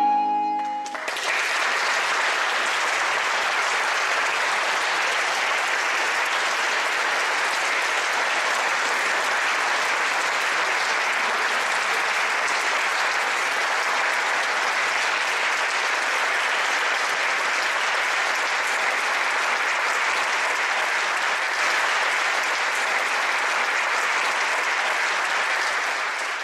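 A soprano with recorder, violin and lute holds a final chord that ends about a second in. A concert audience then applauds steadily.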